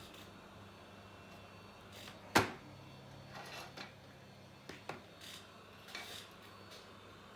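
Small hand tools knocking and clicking on a hard workbench surface: one sharp knock about two and a half seconds in, then a handful of lighter clicks and taps, over a low steady hum.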